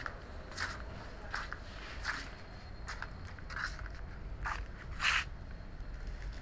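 Footsteps walking at an easy pace, a little more than one step a second, with the loudest step about five seconds in, over a steady low rumble.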